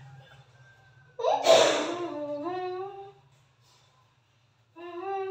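A child's voice making silly drawn-out sounds: a sudden breathy burst about a second in that trails into a long wavering vocal sound, then after a short pause another long wavering hummed note near the end.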